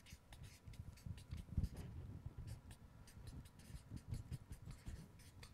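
Felt-tip marker writing on a paper flipchart pad: a string of short, faint, irregular scratching strokes as letters are drawn.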